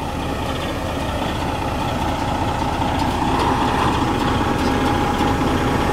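Semi-truck's diesel engine running steadily, getting gradually louder, with a steady whine that comes up about halfway through.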